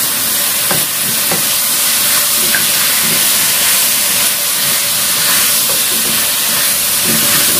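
Chicken and potato pieces sizzling steadily in a wok, frying in the fat the chicken has begun to release, with a few light spatula scrapes about a second in.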